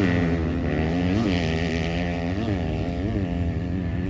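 Off-road vehicle engine running, giving four short throttle blips, each a quick rise and fall in pitch.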